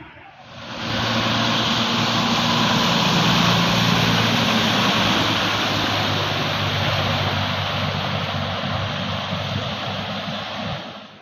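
Fire engine running as it drives slowly through floodwater, its engine a steady low drone under a loud, steady rush of water thrown up by the wheels.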